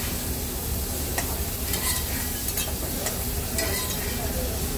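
Chicken sizzling in a hot steel sauté pan as metal utensils stir and scrape through it, with several short clinks of metal on metal.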